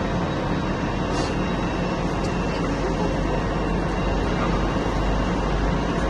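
Steady outdoor vehicle noise: an even, low rumble of traffic.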